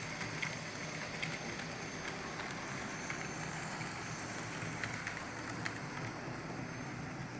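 N scale model train running on the layout track: a steady faint whir with a few light clicks scattered through it.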